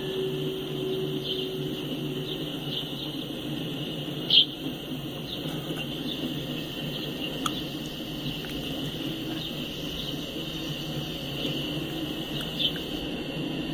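Empty Norfolk Southern coal hopper cars rolling past: a steady rumble of wheels on the rails, with short high wheel squeals recurring, the loudest a little past four seconds in.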